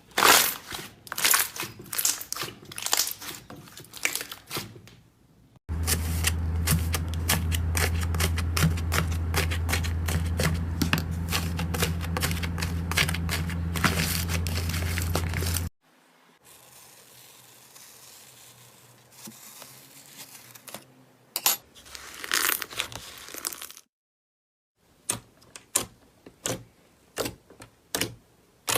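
Slime being squeezed and poked by hand: runs of sticky crackling clicks and pops, in several separate stretches with short gaps between. Under the middle stretch, from about six seconds to about sixteen seconds in, runs a steady low hum.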